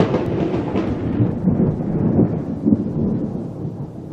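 Intro logo sound effect: a deep, thunder-like rumble, slowly fading.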